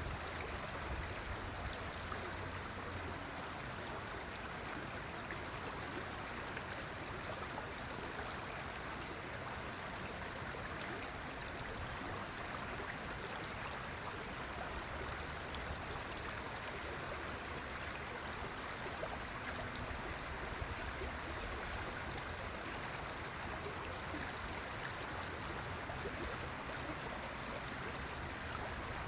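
River water flowing over its bed: a steady, even rushing with no breaks.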